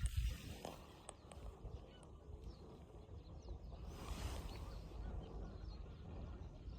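Faint bird calls over a low outdoor rumble.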